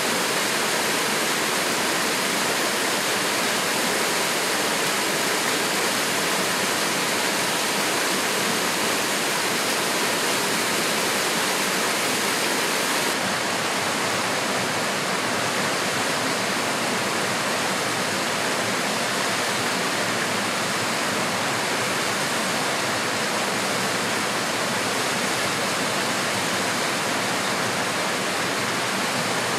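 Small mountain stream cascading over boulders: a steady, dense rush of white water. The highest hiss drops slightly about thirteen seconds in.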